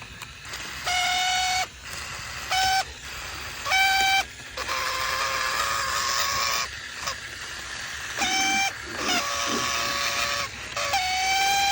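Train horn sounding a series of blasts, some short and some longer, a few with several notes at once, ending in a long held blast.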